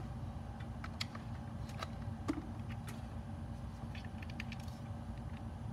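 Scattered light clicks and taps of small objects being handled on a workbench, about ten in all, over a steady low hum.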